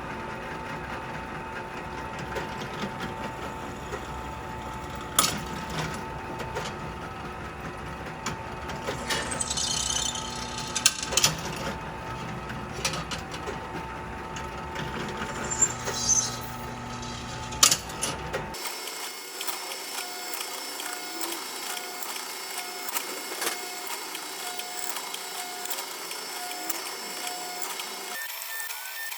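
An electric drill running steadily through a drilling demonstration, with a few sharp clicks and knocks along the way. The sound changes abruptly about two-thirds of the way through, losing its low end.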